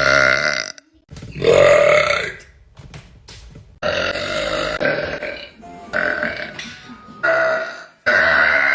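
A woman burping loudly, about six long, drawn-out burps one after another with short pauses between them.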